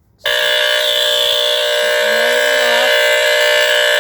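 A vintage AC-powered detector alarm's squealer-type horn, coming on suddenly about a quarter second in and sounding continuously: a loud, steady, buzzy tone with many overtones.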